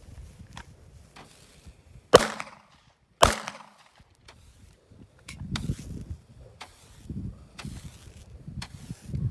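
Two pistol shots from a 9mm Glock handgun, about a second apart, a couple of seconds in, followed by several fainter sharp pops.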